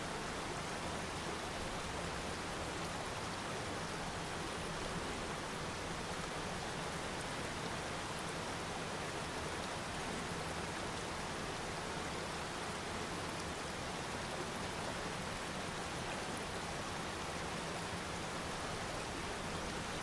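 Rocky mountain waterfall: water pouring over rocks in a steady, unbroken rush.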